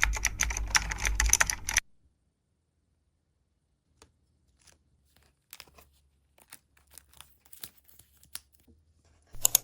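Loud crinkling and tearing of wrapping or sticker material handled close to the microphone for about two seconds. Then quiet with scattered faint taps and clicks, and a sharper click near the end.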